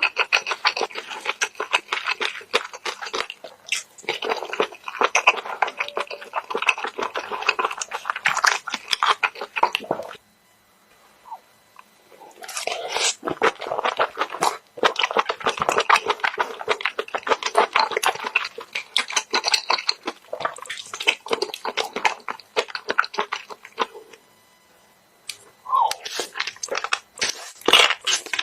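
Close-up chewing and crunching of mixed seafood, a dense crackle of bites that stops twice for a couple of seconds.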